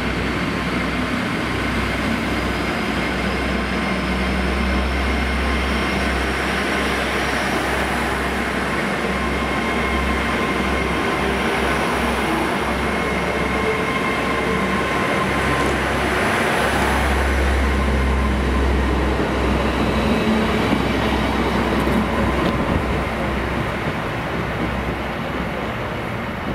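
GWR Class 800 bi-mode train running on its underfloor diesel engines as it moves along the platform and gathers speed. A steady low engine drone runs under a high electric whine that rises in pitch over the first several seconds, with wheel-on-rail rolling noise as the coaches pass.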